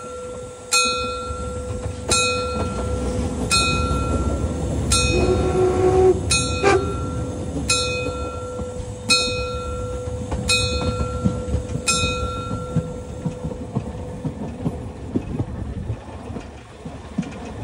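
Narrow-gauge steam train running past with a steady rumble while a bell strikes about every second and a half, stopping about twelve seconds in. A short whistle sounds about five seconds in.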